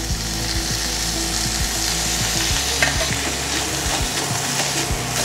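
Finely chopped mutton sizzling as it goes into a hot pan of tomato masala. A steel spoon scrapes and taps against the pan as the meat is stirred in.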